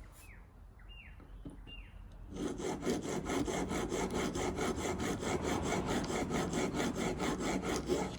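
Steel chisel being rubbed back and forth on a coarse wet sharpening stone, a gritty scraping in quick, even strokes that starts about two seconds in; it is grinding the chisel's bevel down. A few short bird chirps come before it.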